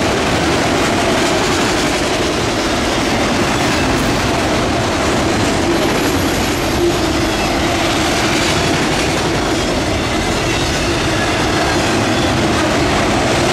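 Autorack freight cars rolling past on steel wheels: a loud, steady rolling rumble and rattle, with a steady ringing tone from the wheels on the rails running underneath.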